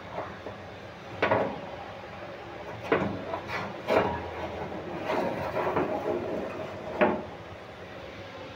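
Metal wire rack being slid into a countertop oven toaster grill: scraping along the oven's rails, with four sharp clanks spread through the push.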